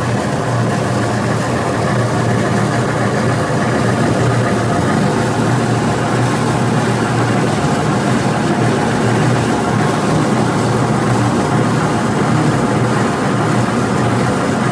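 Roller flaking mill running steadily while flattening oats into flakes: a loud, unbroken machine hum with dense grinding noise, strongest low down.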